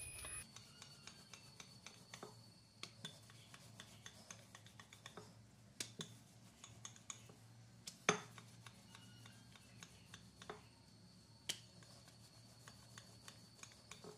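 Wooden rolling pin rolling out a flour-dusted dough round on a board: faint rubbing and scraping with small clicks and taps, and a sharper knock about eight seconds in.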